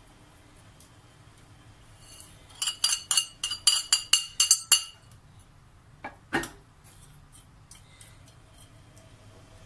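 A quick run of about a dozen light metallic clinks and taps on an aluminium baking tray while knafeh dough is pressed into it by hand, then a single duller knock a few seconds later.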